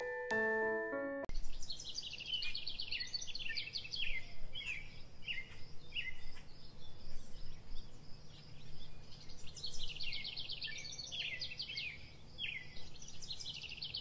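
A dawn chorus of many small songbirds chirping and trilling rapidly over one another, with a faint low hum underneath from about eight seconds in. A few bell-like music notes ring before it and cut off about a second in.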